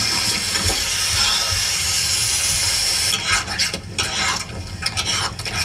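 Pav bhaji mixture of mashed vegetables and tomato purée sizzling steadily on a large flat griddle (tawa). From about three seconds in, a metal spatula scrapes and knocks on the griddle in quick irregular strokes as the bhaji is mashed and stirred.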